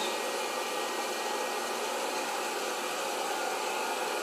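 Hot-air popcorn popper running with a steady blowing rush from its fan and heater. No kernels are popping yet.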